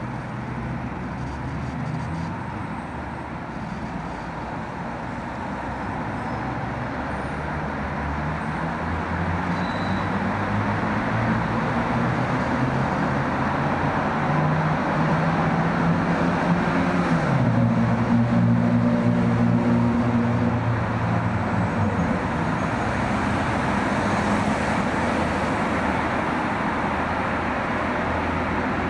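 Road traffic: a continuous haze of passing vehicles with low engine hum, growing louder toward the middle and easing off a little near the end.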